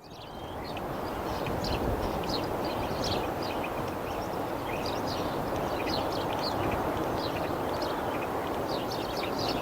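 Ocean surf making a steady rush, with many small birds chirping in short, quick calls over it. The sound fades in during the first second.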